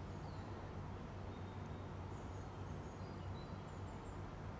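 Faint, scattered bird chirps over a steady low background hum.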